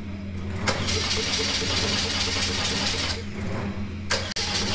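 BMW boxer twin engine turned over by its electric starter in two bursts, a longer one of about two and a half seconds and then a short one of about a second. It has a fast, even pulse and cuts off abruptly each time without the engine catching.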